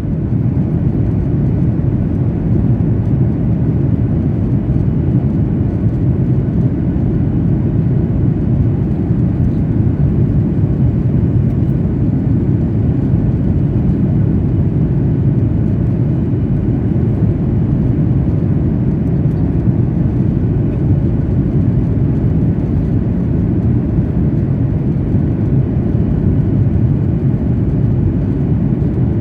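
Steady low rumble of an airliner heard from inside the passenger cabin: engine and airflow noise with no change in pitch or level.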